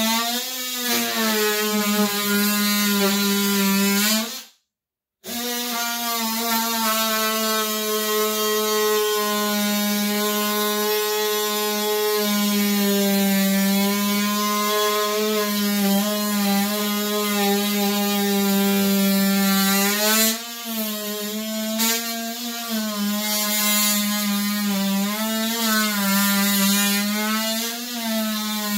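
Small handheld power tool running continuously against door-frame trim, a steady buzzing hum whose pitch sags and wavers slightly as it bears on the wood. It cuts out for under a second about four and a half seconds in, then runs on.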